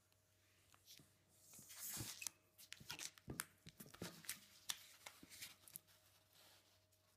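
Inflated latex twisting balloon being handled and knotted at its neck: rubber rubbing and squeaking under the fingers, with a run of short sharp clicks and snaps. There is a brief rushing noise about two seconds in.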